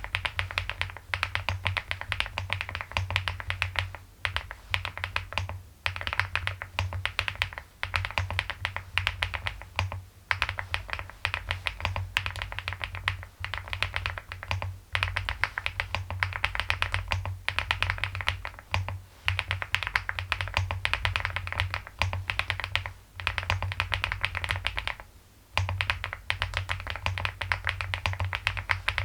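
Fast, continuous typing on a Leobog Hi75 full-aluminium mechanical keyboard with Silyworks Hyacinth V2U switches and MOA keycaps, broken by short pauses every few seconds. The keystrokes have a pebbly clack, like pebbles rolling.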